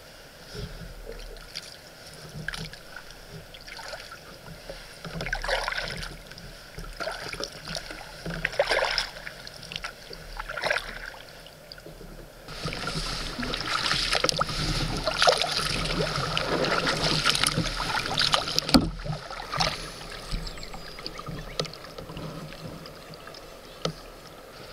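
Kayak paddle strokes splashing in the river, one about every one and a half to two seconds. About halfway through, a louder steady rushing noise joins in for several seconds, with a sharp click near its end.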